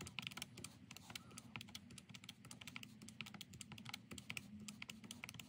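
Fingers tapping the plastic keys of a Catiga desktop calculator in quick succession, a rapid run of light key clicks as figures are punched in.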